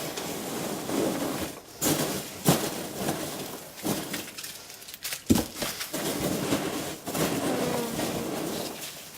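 Packing material rustling and crinkling as items are handled, with a few sharp knocks of small containers being set down or bumped.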